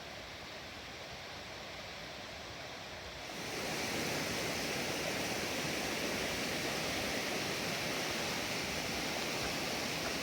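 Waterfall, water rushing steadily; it grows louder and brighter about three and a half seconds in.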